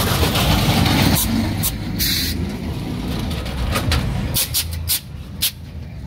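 Pickup trucks driving slowly past, their engines and exhausts running low and steady, with several short sharp clicks and a brief hiss about two seconds in.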